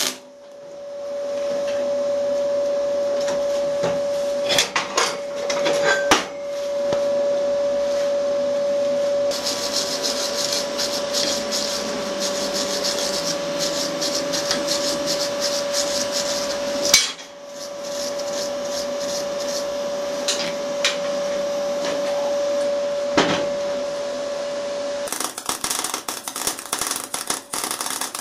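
Electric arc welding on a steel tractor levelling-box rod: the arc crackles and spits in long runs while laying a weld bead, over a steady whine. There are a few sharp knocks and a pause between runs, about seventeen seconds in.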